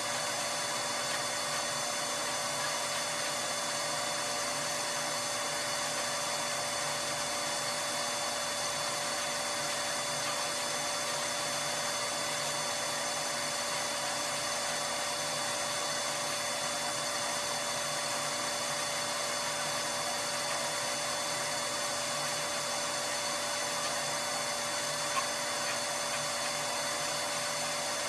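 Soot vacuum motor running steadily with a constant whine while carbon soot is cleared from the boiler's flue passages.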